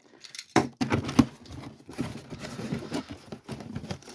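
A cardboard parcel being opened and handled, with a few sharp knocks in the first second or so and rustling of the packaging.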